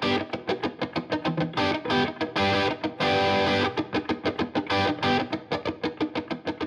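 Intro music: a fast, rhythmic electric guitar riff of rapidly picked notes with effects and a little distortion.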